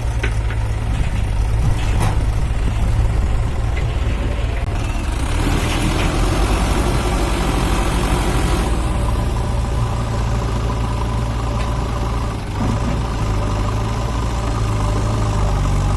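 Heavy diesel engine running steadily, with a rush of hissing noise lasting about four seconds in the middle.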